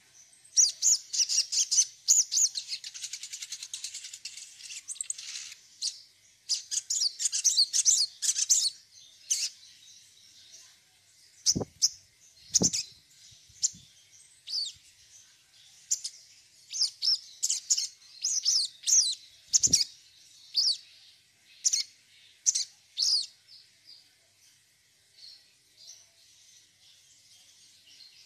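Sogon songbird singing: rapid high chirps and trills in bursts, with a long fast trill over the first few seconds and shorter chirp phrases thinning out toward the end. Three dull knocks stand out in the middle.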